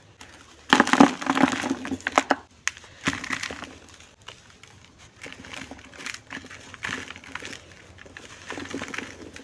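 Dry, crumbly clumps being crushed and breaking apart, a dense crackle of many small cracks. The loudest burst comes about a second in and lasts about a second and a half, followed by softer bursts of crumbling.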